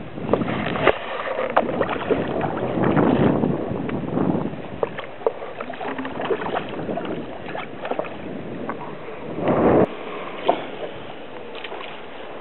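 Water splashing and sloshing as a hooked rainbow trout thrashes at the surface close to the bank and a landing net is worked through the water, with scattered small knocks and a louder splash near the end.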